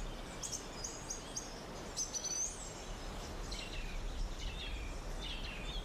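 Small birds chirping in short, repeated high calls over a steady background hiss.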